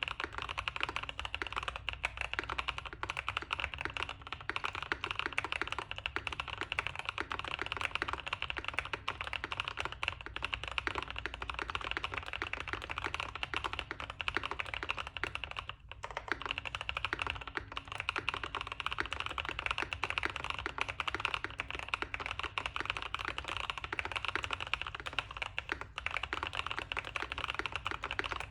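Fast, continuous typing on a custom mechanical keyboard with lubed Gazzew Boba U4T tactile switches on a PLA plate, giving a deep, thocky keystroke sound, with a brief pause about halfway through.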